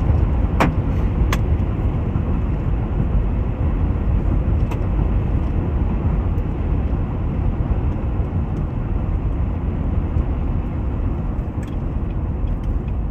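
Steady low rumble of storm wind and the car during a hailstorm, heard from inside the car, with a few sharp clicks of hailstones striking the body, two of them close together in the first second and a half.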